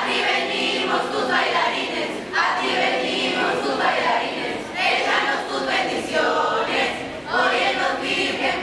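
A group of voices singing together in chorus, in phrases of about two and a half seconds each.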